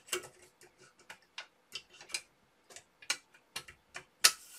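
Irregular light clicks and taps of hard plastic model parts as a side-wall panel is handled and pressed onto the locating pegs of a model ship's hull. The loudest click comes near the end.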